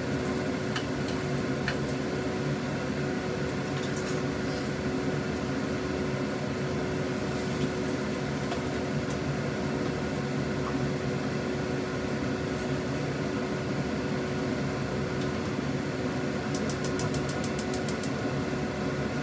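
Steady hum of a kitchen fan with a constant tone, a few light clicks of utensils on the wok, and near the end a quick run of about ten sharp ticks from a gas stove's igniter as the burner is relit.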